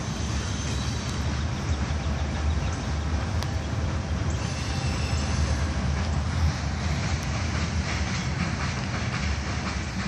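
Long Norfolk Southern freight train rolling past: a steady heavy rumble of the passing railcars, with a brief thin high-pitched wheel squeal about halfway through.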